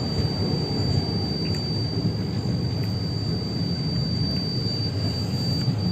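Steady low rumble of railway-station surroundings with no distinct event, a thin steady high whine running above it.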